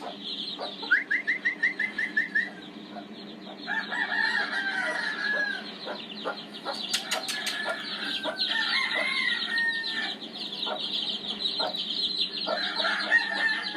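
Chickens calling: roosters crowing and hens clucking, with a quick run of about eight clucks about a second in and several longer crows later on, over a steady low hum.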